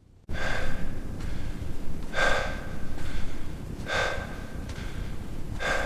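Heavy breathing, four loud breaths about every two seconds over a steady low rumble.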